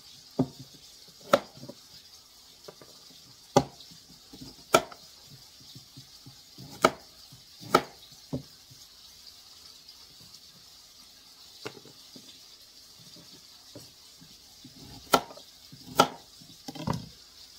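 A large kitchen knife slicing through a raw carrot and knocking on the cutting board, one sharp knock at a time, about a dozen spread unevenly with pauses of one to several seconds between them.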